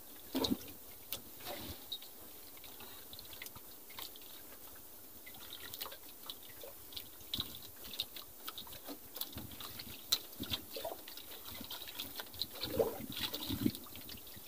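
Water lapping and splashing against the hull and bamboo outrigger of a small wooden outrigger boat sitting on a calm sea: soft, irregular small splashes and drips over a faint hiss.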